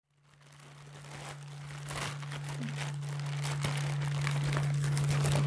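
Thin plastic carry bag crinkling and rustling as hands pull it open around a woven basket, fading in from silence over the first seconds, with a steady low hum underneath.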